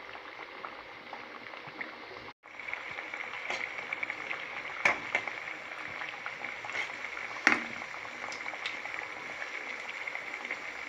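Wheat-flour dough balls deep-frying in hot oil: a steady sizzling hiss, with a few sharp clicks and a brief break about two seconds in.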